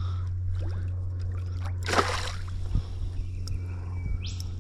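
A short splash of water about two seconds in, as a hooked flathead is brought up to the surface during the fight, over a steady low hum.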